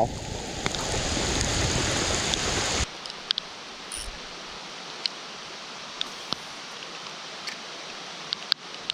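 Rain falling on the water and the kayak: a steady hiss that is loud for about the first three seconds, then drops suddenly to a softer hiss with scattered sharp ticks of drops striking.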